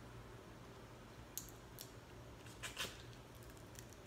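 Quiet eating and handling of king crab: scattered sharp clicks and crackles of shell and plastic fork and of mouth sounds, starting about a second and a half in.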